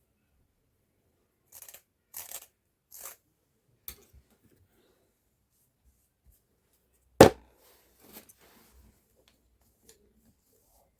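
Handling noise: three brief rustles, a small click, then one sharp loud knock about seven seconds in, followed by a few faint taps.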